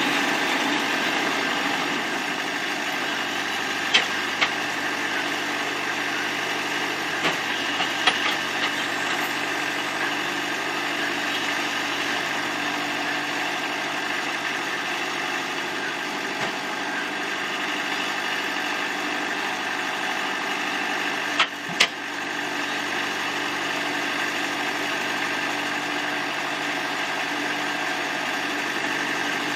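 Portable sawmill's engine running steadily, with a few short sharp knocks over it: a couple about four seconds in, more around eight seconds, and two close together about two-thirds of the way through.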